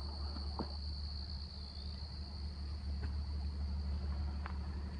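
Insects, crickets by their sound, trilling on one steady high note, over a steady low rumble and a few faint clicks.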